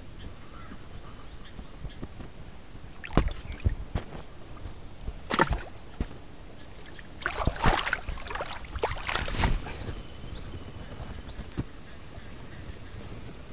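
A long-handled hoe chopping into the earth of a rice paddy: about four strikes roughly two seconds apart, the last two longer and rougher.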